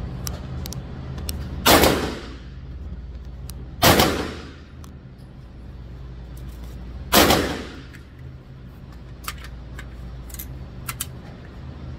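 Three single gunshots at an indoor shooting range, spaced a couple of seconds apart, each with a ringing echo tail. A few faint clicks follow near the end.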